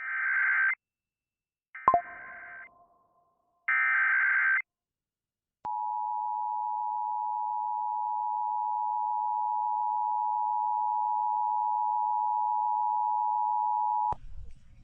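Emergency Alert System activation: three short bursts of warbling SAME data tones about two seconds apart. About five and a half seconds in, the EAS two-tone attention signal (853 and 960 Hz together) comes on and holds steady for about eight seconds, then cuts off. This opens a tornado warning alert.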